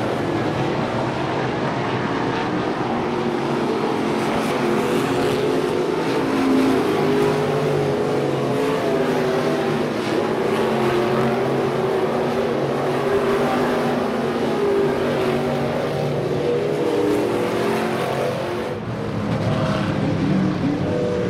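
Several USRA Limited modified race cars' V8 engines running hard around a dirt oval, their engine notes overlapping in a steady, loud drone.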